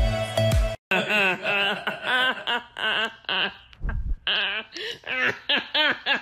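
Music cuts off under a second in, then a person laughs in quick, wavering runs of high-pitched laughs, with a short low thud about four seconds in.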